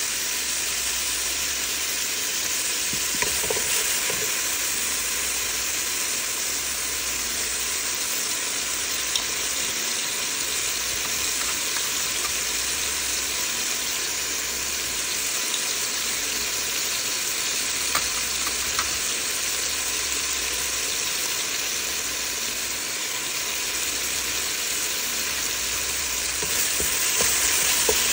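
Chopped onion, tomato and peppers sizzling steadily in hot oil in a stainless steel stockpot, with a wooden spoon stirring the vegetables and a few light clicks; the stirring gets a little louder near the end.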